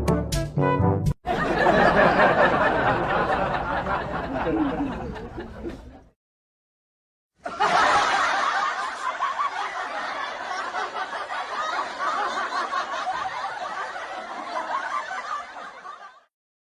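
The tail of a brass music sting, then two canned laughter sound effects of a group of people laughing, each fading out, with a short silent gap between them.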